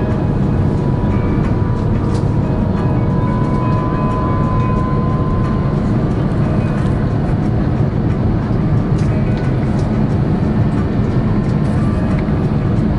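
Steady cabin roar of an Airbus A350-900 on its landing approach: its Rolls-Royce Trent XWB engines and the airflow are heard from a window seat over the wing. The noise is loud and even, with no change in pitch.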